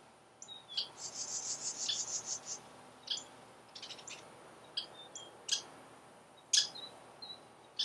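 Western Kingbirds calling while mobbing a great horned owl: sharp, high-pitched kip notes, with a rapid chattering series about a second in and single sharp calls scattered through the rest.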